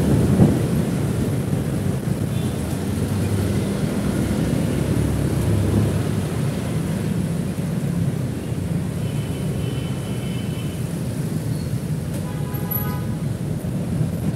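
Motorcycle running in city traffic, heard from the moving bike with wind buffeting the microphone: a steady low rumble and rushing noise. Short pitched tones sound about two-thirds of the way through and again near the end.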